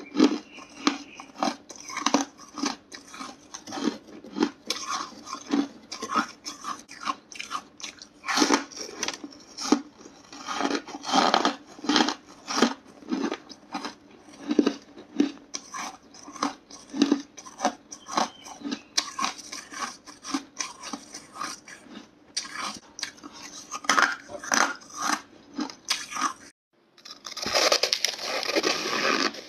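Close-up mouth sounds of a person biting and chewing hard frozen ice and freezer frost: a quick, irregular run of crisp crunches, several a second. Near the end the crunching breaks off for a moment, then comes back denser and more continuous.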